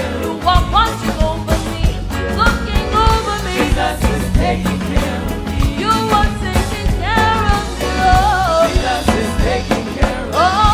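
Gospel worship music: a singing voice over a band with a steady beat of percussion and a sustained bass.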